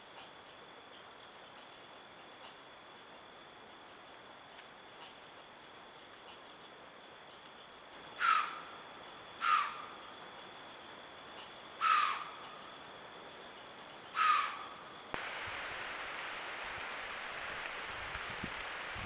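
A steady chorus of crickets, broken about halfway through by four loud, short, harsh calls spaced one to two seconds apart. Near the end the chorus gives way suddenly to a steady hiss.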